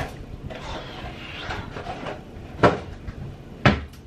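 Kitchen clatter as a dishwasher is loaded: light clinking, then two sharp knocks about a second apart near the end.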